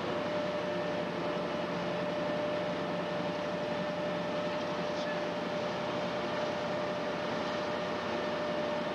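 Steady drone of a river ship's engine heard on board: an even rushing noise with a constant hum that does not change.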